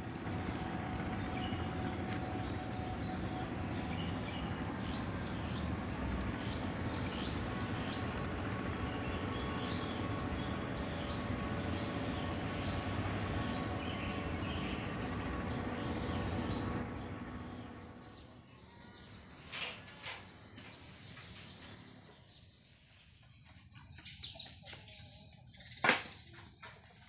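Tropical forest insect chorus: a steady, high-pitched continuous drone. A louder even noise sits under it for the first two-thirds and then falls away, leaving the insect drone with a few faint chirps and clicks, and one sharp click near the end.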